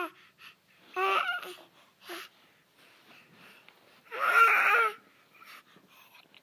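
Baby vocalizing in short babbling calls, with a longer, louder call about four seconds in.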